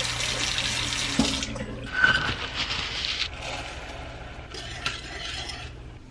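Kitchen tap running into a stainless steel saucepan at the sink, breaking off about a second and a half in; two shorter stretches of water sound follow, as water is poured from a measuring cup.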